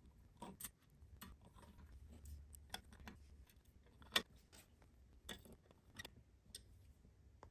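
Hand screwdriver driving small screws into a hard drive through a metal drive tray: faint, irregular clicks and ticks of metal on metal, the sharpest about four seconds in.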